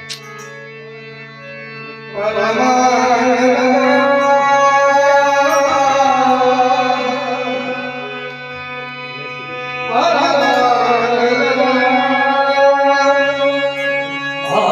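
Harmonium holding a steady drone, joined about two seconds in by a man singing a devotional song, the harmonium following his melody. The singing eases off briefly and comes back strongly at about ten seconds.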